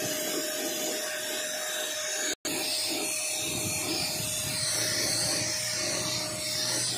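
Electric paint spray gun running and spraying paint: a steady motor whine under a strong hiss of air and atomised paint. The sound breaks off for an instant about two and a half seconds in.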